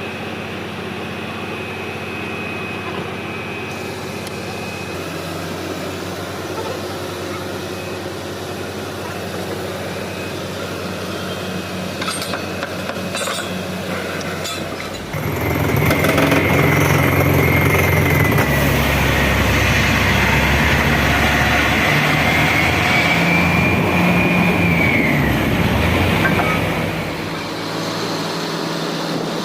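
Truck-mounted borewell drilling rig running: a steady engine drone that gets louder about halfway through, with a high wavering whine over it, then eases back near the end.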